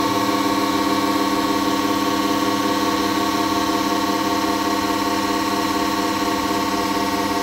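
Loud, steady electrical buzz of an Xpelair Taurus T10 fan fed about 2,000 volts from a microwave oven transformer, a harsh many-toned hum that holds unchanged.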